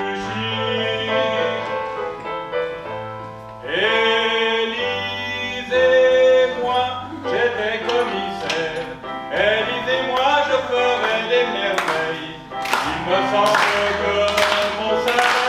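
A man singing a comic song in French to a backing track with bass notes. Sharp beats join in from about twelve seconds in.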